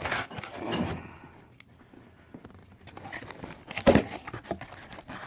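A mailed package being opened by hand: crinkling and tearing of the packaging in short rustling bursts, with a sharp knock about four seconds in.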